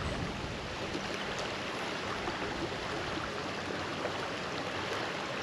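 Creek water running steadily over a shallow riffle into a pool.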